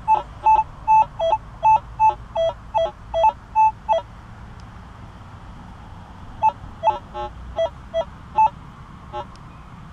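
Minelab CTX 3030 metal detector sounding its target tones as the search coil swings back and forth over a buried metal target. Short beeps come about two and a half a second, some stepping down in pitch partway. A run of them lasts about four seconds, then after a pause of about two seconds comes a second run.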